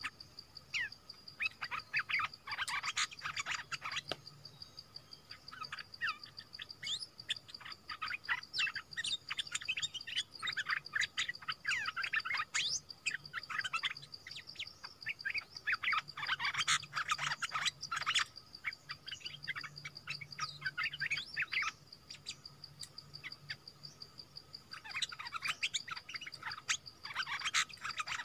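Bulbuls (the bird Thai keepers call nok dok taeng) calling back and forth at a decoy trap, the caged decoy and the wild bird answering it. The calls come in repeated bursts of quick chirps and whistled notes, each burst a few seconds long. Under them runs a steady high insect-like whine.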